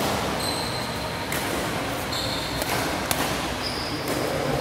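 Badminton shuttlecock being struck back and forth by rackets in a doubles rally: sharp pops roughly a second apart, the loudest about three seconds in. Short high-pitched squeaks of court shoes on the floor come between the hits.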